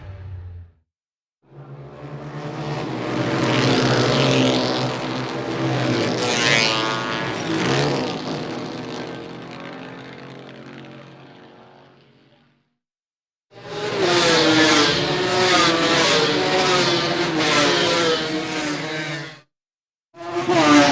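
Motorcycle engine sound effects. First a motorcycle whose engine noise builds up and then fades away over about ten seconds, as it passes by. After a brief silence comes a separate clip of an engine running for about six seconds with its pitch wavering as it is revved, and a third clip starts just before the end.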